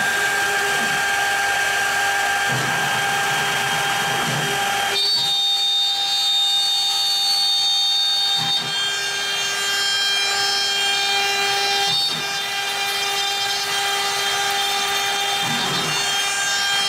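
CNC router spindle running with a ballnose bit cutting into an oak board: a steady whine over a cutting hiss. Higher tones join the whine about five seconds in, and the level dips briefly a couple of times.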